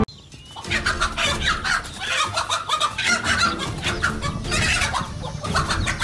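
Domestic hen squawking and clucking in rapid, repeated alarm calls, starting about a second in, while a raptor attacks her and her chicks.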